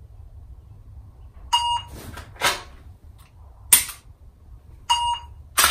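A phone shot-timer app gives a short start beep, then come two rustles of the draw and a single sharp dry-fire click from the pistol's trigger breaking on an empty chamber about two seconds after the beep. A second timer beep follows, and a sharp knock comes right at the end.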